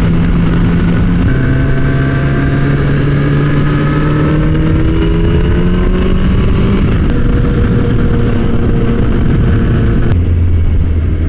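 Kawasaki ZX-10R sportbike's inline-four engine running under way with wind rushing past. The engine pitch rises slowly as the bike gains speed, then drops sharply about ten seconds in.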